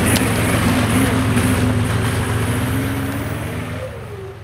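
Custom-built off-road buggy's engine running under load as the buggy passes close and pulls away up a muddy track, fading over the last second or so.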